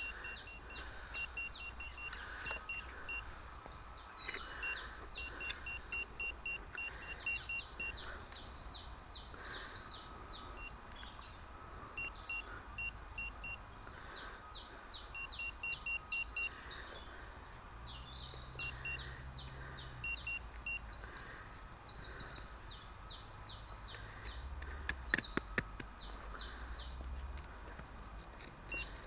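Metal detector sounding through its own speaker: runs of short, quick beeps on one pitch, repeating in clusters as the coil is swept, with birds singing alongside. A few sharp clicks about 25 seconds in.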